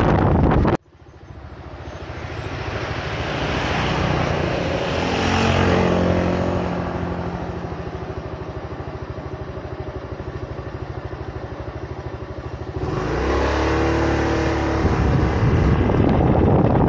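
Motorcycle engine running as the bike rolls at low speed, with wind rushing over the camera microphone. Wind noise cuts off abruptly about a second in and the steady engine note is left. Near the end the engine gets louder and the wind noise builds again as the bike picks up speed.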